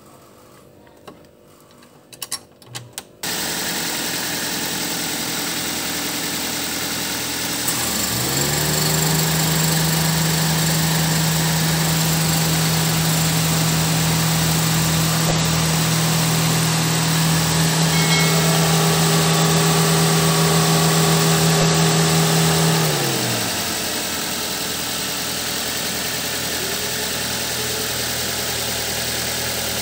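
Car engine idling. About 8 seconds in, the electric AC/radiator fan motor spins up with a rising hum, runs steadily for about fifteen seconds, then winds down.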